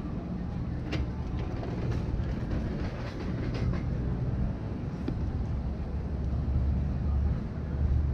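Steady low rumble of a large vehicle, growing a little louder near the end, with a few light clicks.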